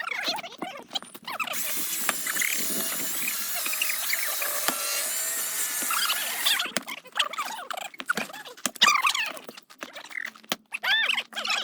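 Short high-pitched squeals that rise and fall, repeated in bursts, with a steady hiss from about a second and a half in to about six and a half seconds.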